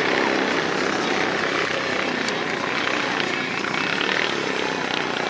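Engines of off-road race vehicles running on the track, a steady mix of several engines at once.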